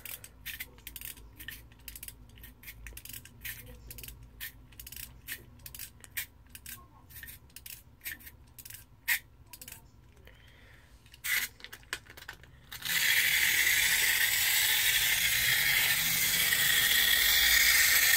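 A clockwork Q-style MTR toy train is wound by rubbing its roller, giving a string of sharp ratchet clicks, about three a second. About two-thirds of the way in it is let go, and its wound spring motor whirs steadily and loudly as it runs round the plastic track.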